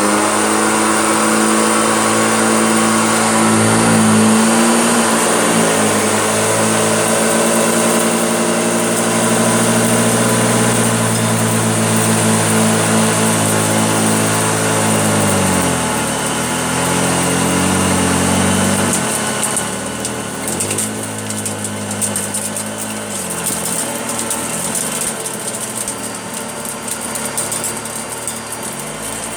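Vintage Hoover Junior upright vacuum cleaner running on low carpet, a steady motor hum with a hiss of air. The hum dips in pitch and recovers several times from about halfway through as the machine is worked over the carpet, and gets a little quieter after that.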